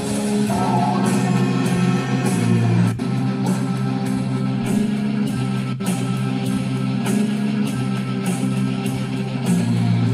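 Guitar-driven rock music with a steady beat, played loud through a 2.1 soundbar with wireless subwoofer, streamed over Bluetooth from a phone.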